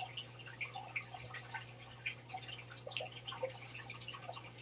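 Faint, irregular water drips, short plinks at varying pitches a few times a second, over a steady low hum.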